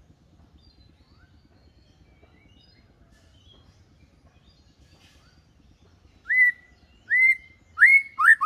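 White-rumped shama singing: faint scattered chirps, then about six seconds in three loud whistles that sweep upward, each under a second apart, breaking into a rapid run of notes near the end.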